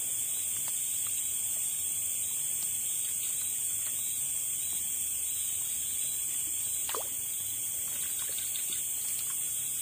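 Steady high-pitched chorus of night insects such as crickets, with one faint click about seven seconds in.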